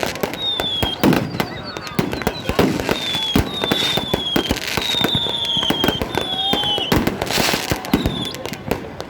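New Year fireworks going off in a dense string of bangs and crackles, with repeated short high whistles that fall slightly in pitch.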